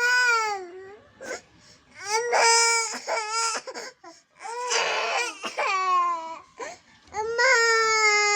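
A young child crying in about four long wails, with short gaps between them; the pitch sags and falls away at the ends of the cries.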